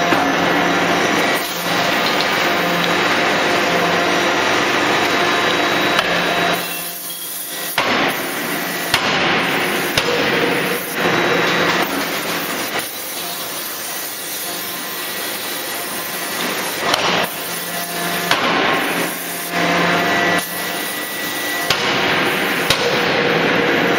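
A 3-ton hydraulic closed-die forging hammer striking a red-hot billet to forge a flange yoke. Sharp, loud blows come every second or few, irregularly spaced, over continuous machine noise.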